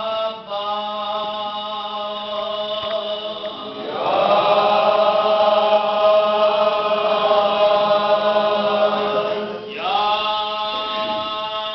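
A group of men chanting a noha (Shia lament) in unison, drawing out long held notes rather than words. About four seconds in, the voices swell louder on one note held for nearly six seconds, then drop and move to the next held note.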